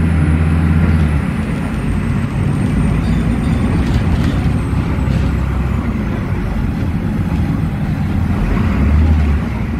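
Volvo B9S articulated bus heard from inside the cabin while under way: its Volvo D9B diesel engine runs with a deep hum over steady road noise. The hum is strongest in the first second and again near the end. A faint high whine slides slowly downward over the first several seconds.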